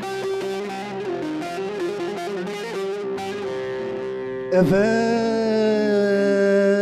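Turkish folk music on bağlama (saz): a quick plucked instrumental passage, then about four and a half seconds in a loud held note slides up and is sustained to the end.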